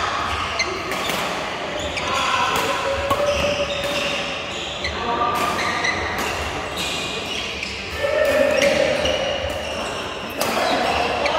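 Badminton rally: sharp racket-on-shuttlecock hits at an irregular pace, echoing in a large hall, with players' voices.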